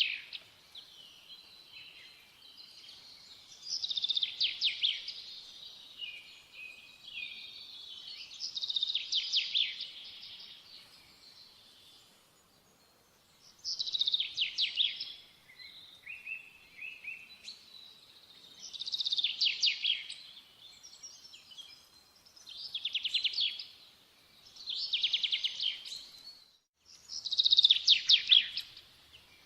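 A songbird singing: short, rapidly trilled phrases of about a second each, repeated every few seconds.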